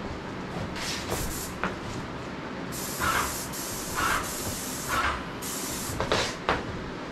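Graco 390 airless paint sprayer's gun hissing as it sprays black paint onto a hanging shelf. It goes in bursts: a couple of short ones, then a longer pass that swells about once a second, then one more short burst near the end.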